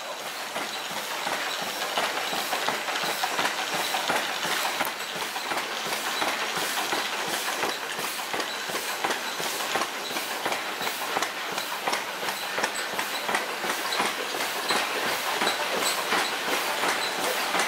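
Several stationary steam engines running at once, with their moving parts and belts making a steady, rapid rhythmic clatter.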